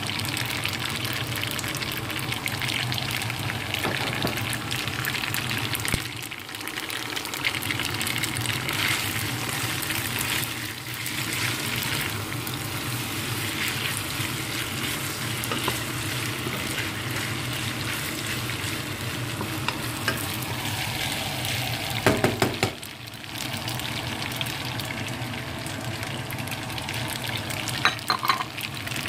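Spaghetti with chicken and bell peppers sizzling in a nonstick wok as it is stirred, a steady frying hiss. A few louder knocks come about two-thirds of the way through.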